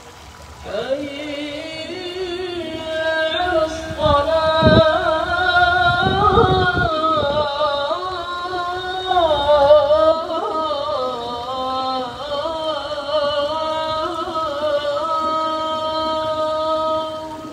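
A solo voice chanting in long, winding, ornamented phrases in an Arabic melodic style, coming in about a second in and fading near the end.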